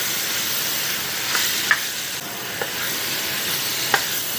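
Sliced raw pork frying in hot oil in a stainless steel wok: a steady sizzle as it is stirred, with three short clinks of the utensil against the pan.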